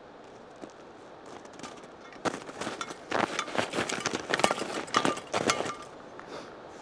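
A quick, irregular run of sharp snaps and cracks, starting about two seconds in and stopping near the end, over a steady hiss.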